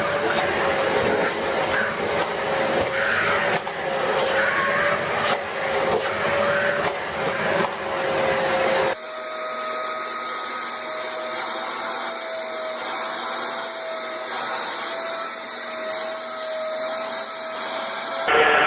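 Vacuum cleaner motor running steadily with a constant whine and rushing air. About nine seconds in there is an abrupt switch to another vacuum cleaner running with a slightly higher whine.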